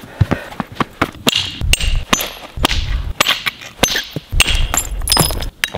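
Antler billet striking the edge of a flat stone axe blank resting on a leather pad, knapping off flakes: a rapid, irregular series of sharp knocks, some with a brief high ring from the stone. The knocking stops abruptly near the end.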